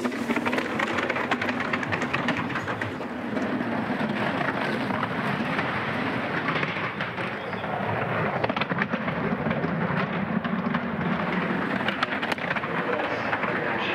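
A luge sled's steel runners sliding at speed down an ice track: a steady rushing, scraping rumble with many small clicks and knocks.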